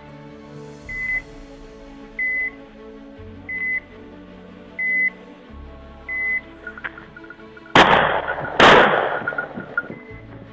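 Two shotgun shots about a second apart near the end, over background music. Before them come short, evenly spaced electronic beeps, one about every 1.3 seconds, like a hunting dog's beeper collar, and faster, fainter beeps run around the shots.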